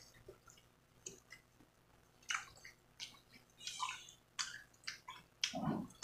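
Close-up chewing of fresh mango slices with shrimp paste: wet, crisp chewing and mouth sounds coming in short irregular spells.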